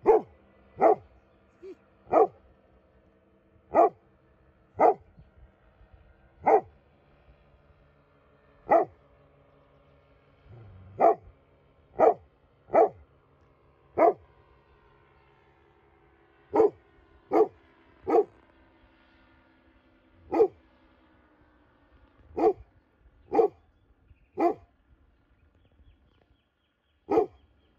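A dog barking, single sharp barks one every second or two, about eighteen in all, with the longest pause about two seconds before the last one.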